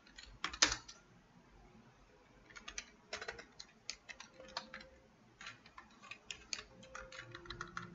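Computer keyboard being typed on, with irregular key clicks. Two keystrokes come about half a second in, then a short pause, then uneven runs of typing through the rest.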